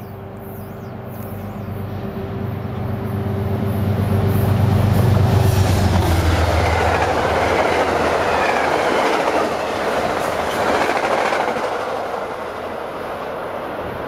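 A Metro-North train of Shoreliner coaches passing through at speed. The locomotive's low drone grows and peaks about five seconds in. The coaches then rush by with a clatter of wheels on rail that slowly eases off.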